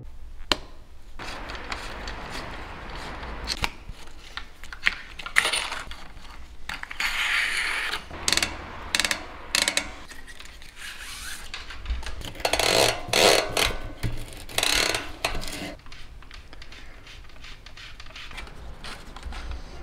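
Hand tools and parts being handled while a 12-speed bicycle drivetrain is fitted: sharp metal clicks and scrapes of chain pliers on the chain and of a shift cable and housing being worked. Louder rustling, scraping bursts come around twelve to fifteen seconds in.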